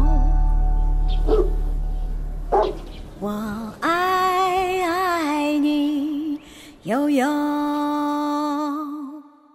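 A woman singing the last line of a slow Mandarin ballad as the backing music fades out. She holds two long notes with vibrato, and the voice dies away near the end.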